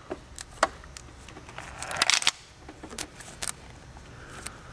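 Scattered small clicks and handling noises of gloved hands pushing a rubber hose onto a plastic T fitting, with a quick run of clicks about two seconds in.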